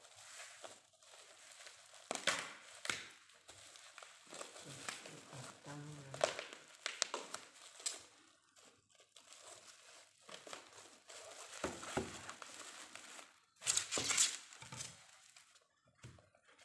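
Black plastic parcel wrapping crinkling and tearing as it is cut with scissors and pulled open, in irregular rustling bursts, with the loudest bursts near the end.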